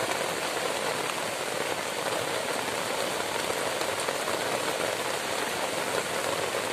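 Heavy rain pouring steadily onto a simple shelter thatched with grass and palm leaves.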